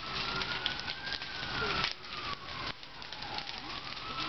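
A shed fire burning hard, the flames crackling and popping throughout. Over it an emergency vehicle's siren wails slowly, rising to a peak about a second in and falling away toward the end.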